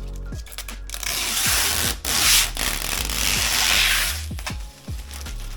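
Protective plastic film being peeled off a PC case panel: a loud tearing hiss from about a second in until about four seconds in, over background music with a steady beat.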